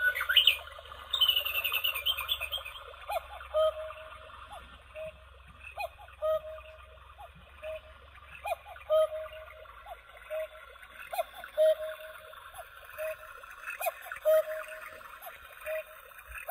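Battery quartz cuckoo clock playing its recorded cuckoo call, a two-part 'cuck-oo' repeating about every 1.3 s, around ten times. Recorded birdsong chirps over the first few seconds.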